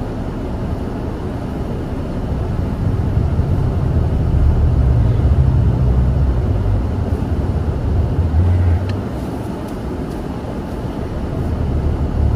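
Car cabin noise: the heater fan blowing at full to clear ice from the windshield, over the car's engine as it drives off. A low rumble swells about three seconds in and eases again after about nine seconds.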